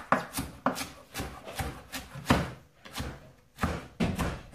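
Kitchen knife chopping shredded iceberg lettuce on a wooden chopping board: about eight uneven knocks of the blade through the leaves onto the board, with a pause of about a second past the middle.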